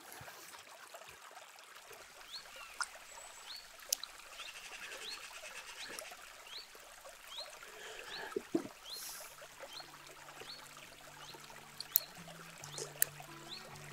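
Quiet riverbank ambience: faint trickling water, with a bird repeating a short rising chirp roughly once a second and a few sharp clicks. Music with steady held notes fades in near the end.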